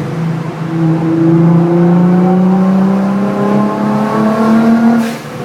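Nissan GT-R R35's twin-turbo V6 pulling under load through a catless, non-resonated Meisterschaft exhaust, its note climbing slowly and steadily. About five seconds in, the throttle closes with a short whoosh from the Go Fast Bits blow-off valve, which is set to vent about two-thirds to atmosphere, and the engine note drops.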